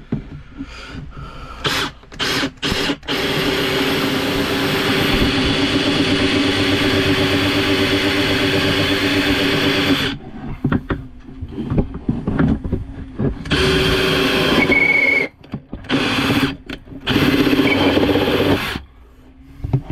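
Cordless drill boring a hole through wood with a long bit: a few short blips of the trigger, then a steady run of about seven seconds, then several shorter runs in stops and starts.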